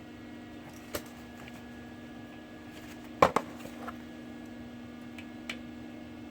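A steady electrical hum with three short, sharp knocks of handled metal. The loudest knock comes just after three seconds in; lighter ones come about a second in and near the end. No welding arc is heard.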